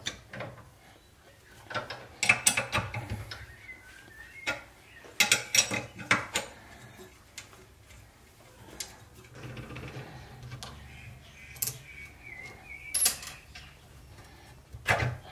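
Small steel parts of a spindle encoder cartridge being handled in a bench vise: scattered light metal clicks and clinks as a nut and washer are taken off and a toothed belt pulley is worked off its shaft. There are two short runs of rapid clicking and a couple of sharper clinks near the end.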